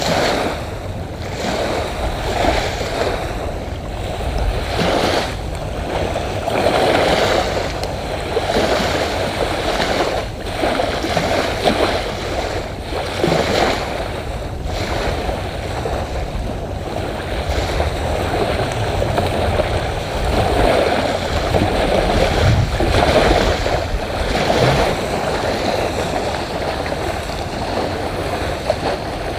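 Small waves lapping and washing onto a sandy beach, with wind rumbling on the microphone.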